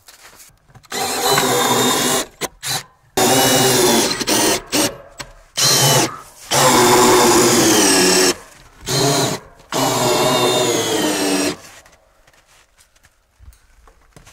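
Cordless drill driving screws into wood, running in a series of bursts of one to two seconds each, its whine sliding down in pitch under load.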